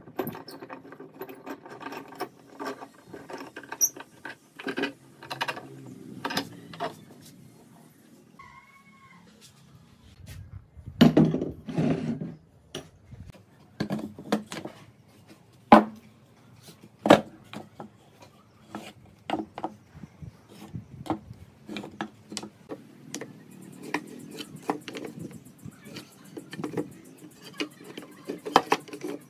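Irregular knocks, taps and clicks of wood and tools being handled, loudest around eleven to twelve seconds in, with a brief squeak about nine seconds in.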